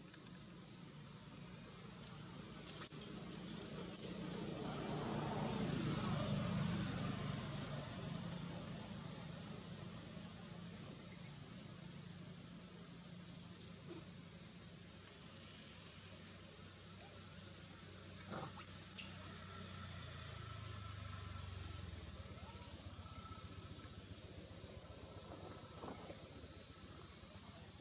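Steady high-pitched drone of insects, crickets or cicadas, in forest, with a few brief faint squeaks and a faint low rumble that swells about five seconds in.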